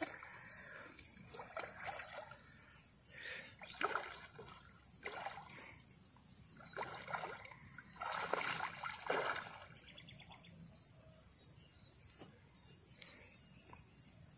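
Water splashing and sloshing in irregular bursts, with the biggest splashes about eight to nine seconds in.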